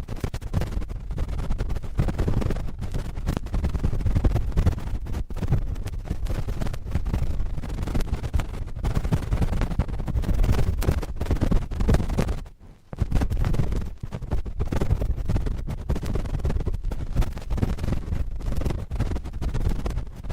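Cotton swabs scratching and rubbing directly on a microphone, giving a dense, continuous scratchy rustle that is heaviest in the low end. It breaks off briefly a little past halfway, then resumes.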